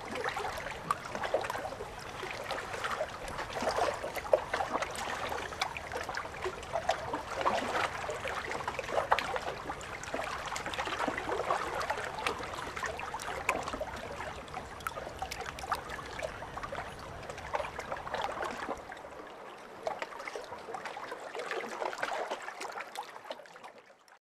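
Lagoon water lapping and sloshing against moored boats and wooden mooring poles, a steady wash of small splashes that fades out near the end.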